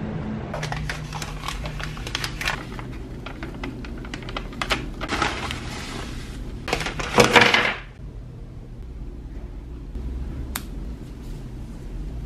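Brown paper shopping bag rustling and crinkling as it is opened and handled, with small clicks and knocks as the wooden rubber stamps inside are handled. The loudest crinkle comes about seven seconds in, after which only a steady low hum remains.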